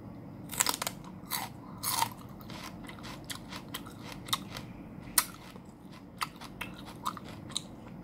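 Raw celery stalk bitten off and chewed: a few loud crunches in the first two seconds, then a run of shorter crisp crunches and clicks from chewing, with one sharp crunch about five seconds in.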